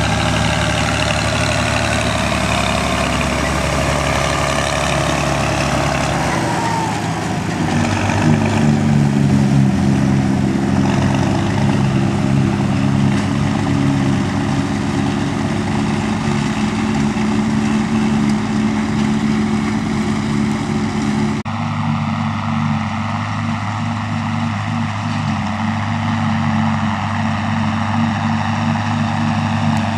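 Farm tractor engines running while working silage. The pitch sweeps for the first few seconds, then settles into a steady, heavy engine note. About two-thirds through, the sound switches abruptly to another engine.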